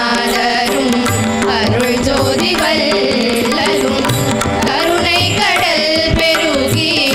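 A group of girls singing a Carnatic devotional song together, accompanied by mridangam drum strokes.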